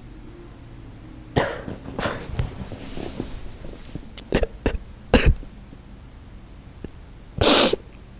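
A person coughing: a run of short, sharp coughs and breaths, the loudest one near the end.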